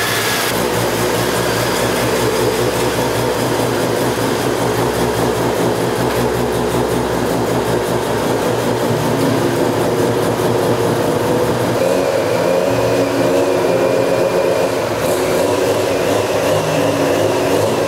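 Mazda 13B bridgeport rotary engine in an FC RX-7 running steadily with a rapid, pulsing beat; its note changes slightly about twelve seconds in.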